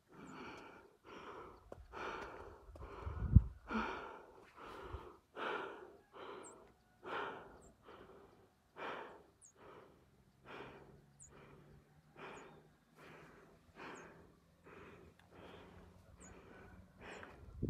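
A runner breathing hard and rhythmically close to the microphone, about one breath a second. A loud low bump about three seconds in, and faint high chirps later on.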